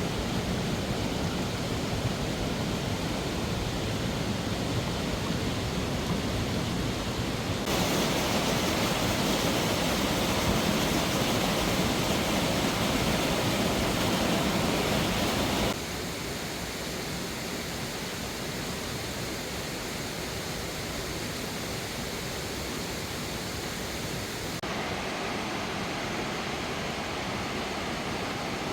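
Steady rush of a mountain stream pouring over rocks, in several edited clips. The level and tone jump abruptly about eight, sixteen and twenty-five seconds in, and the second clip is the loudest.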